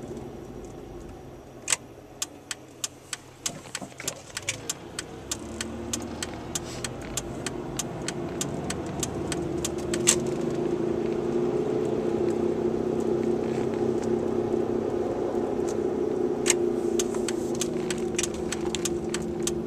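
1998 Malibu slowing to a stop and then pulling away, the drone of its two bad wheel bearings building as it gathers speed. A run of sharp ticks starts about two seconds in and comes faster and faster.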